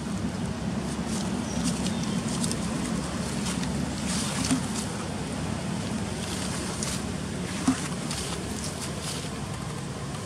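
Steady low outdoor rumble, like distant engine hum or wind on the microphone, with scattered short rustles and crackles and one sharp click about three-quarters of the way in.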